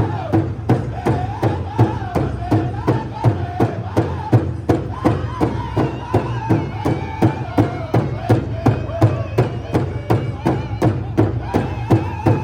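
Powwow drum struck in an even beat of about three strokes a second, with singers' voices carrying a wavering melody over it.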